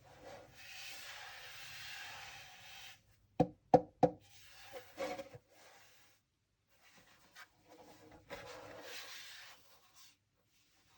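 Parts of a standing fan being handled: a rubbing, sliding sound, then three sharp knocks in quick succession about three and a half seconds in, a few lighter clicks, and another rubbing slide near the end.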